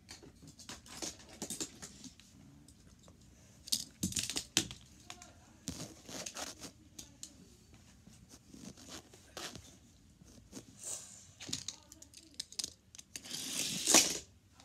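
Plastic Hot Wheels track pieces being handled and fitted together, with scattered clicks and scrapes and a louder noisy scrape near the end.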